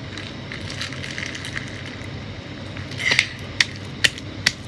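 Hands working a sticky, glue-like slime and its plastic bag: a soft, steady crackling with a short crinkle about three seconds in and a few sharp clicks near the end.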